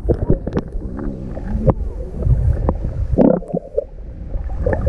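Muffled underwater sound from a submerged camera: a dull low rumble of water with scattered sharp clicks and bubbly gurgles as a swimmer moves close by.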